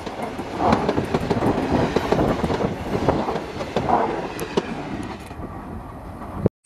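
Indian Railways passenger coaches rushing past at close range, a loud steady rumble with repeated clatter of the wheels over the rail joints. The sound fades as the last coach passes and the train draws away, then cuts off abruptly near the end.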